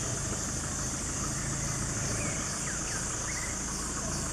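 Steady forest-edge ambience: a high, even insect drone over a low steady rumble, with a few short bird chirps in the second half.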